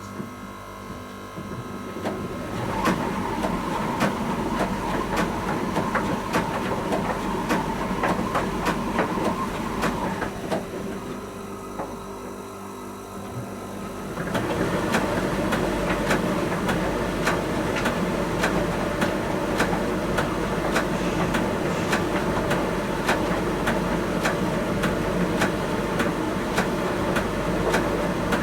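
Miele T1 heat pump tumble dryer running, with regular light clicks and a steady hum. A tone holds for several seconds, the sound drops quieter for a few seconds, then picks up louder about halfway through.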